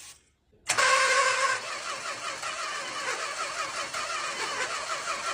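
Starter motor cranking the 1969 Chrysler Newport's 383 big-block V8, starting about a second in and turning over with an even pulsing beat without firing.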